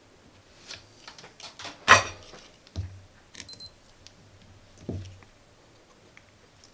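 Small clicks and knocks from handling a circuit board and the metal alligator clips of a helping-hands stand on a silicone work mat, the loudest about two seconds in. A short, high electronic beep sounds about three and a half seconds in.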